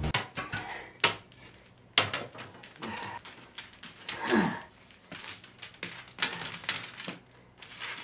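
Coiled copper pipe being handled on a bamboo floor mat: irregular light knocks, clinks and scrapes as the loops bump and drag against each other and the mat, the sharpest knocks about one and two seconds in, with a brief falling scrape about four seconds in.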